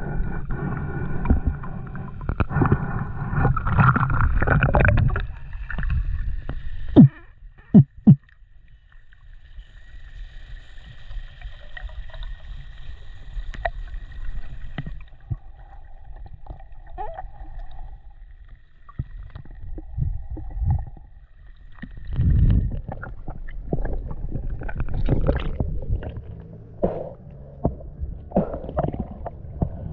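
Water rushing and bubbling around an underwater camera, with three sharp loud knocks about seven to eight seconds in. A quieter stretch follows with a faint steady high tone. In the last third, water splashes and sloshes as the camera works at the surface.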